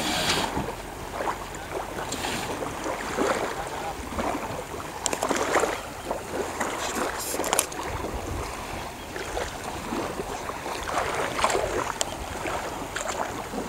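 Outdoor shoreline ambience: wind on the microphone and small waves lapping, with irregular brief rustles and knocks throughout.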